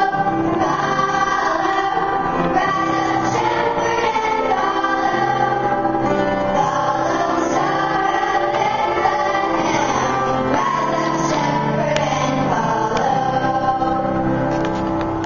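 Children singing together as a choir, a sung Christmas song with steady held notes underneath.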